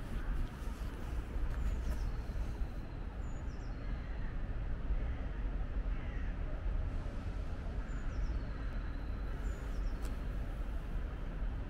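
Steady low rumble of city traffic, with a few faint crow caws over it.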